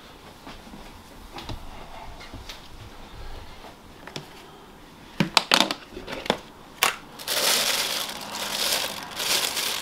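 The plastic lid of a tub of Quick Blue bleach powder is pried off with a few sharp clicks and knocks about five seconds in. Then the plastic bag lining the tub crinkles and rustles loudly as it is opened.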